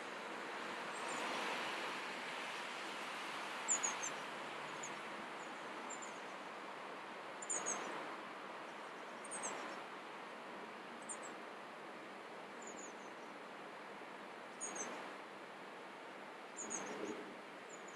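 Outdoor ambience: a steady rushing background noise, with a small bird repeating short, high chirps, often in quick pairs, every second or two.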